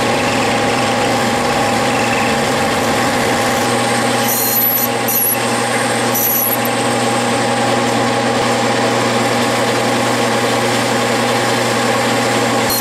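Clausing metal lathe running steadily, with a steady hum, while a 3/32-inch cutoff tool cuts undercut grooves into 5/8-inch bar stock turning between the chuck and the tailstock centre. A few brief high-pitched sounds come through near the middle.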